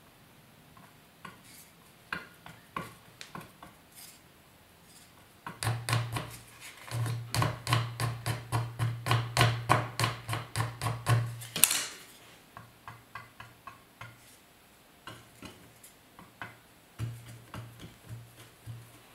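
A hake, the flat urushi lacquer brush, being scraped and pressed against a hard work plate with a wooden spatula as it is cleaned. The strokes run about three or four a second for some six seconds midway and end with a sharp click, with light taps and clicks of the tools before and after.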